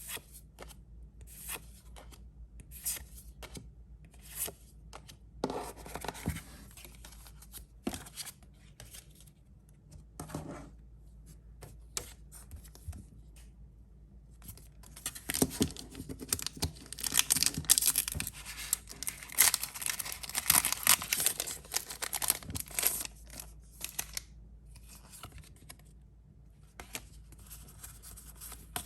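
Pokémon card packaging being torn open and crinkled by hand, with small clicks and rustles of cards being handled. A long, loud stretch of dense tearing and crinkling comes about halfway through.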